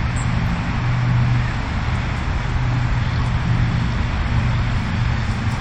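Steady outdoor background rumble and hiss with a constant low hum, unchanging throughout.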